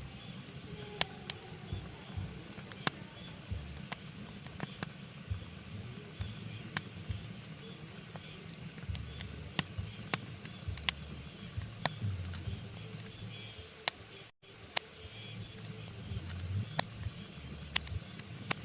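Pine logs burning in a fireplace, crackling with irregular sharp pops over a steady hiss and low rumble of the fire. The sound cuts out for an instant about two-thirds of the way through.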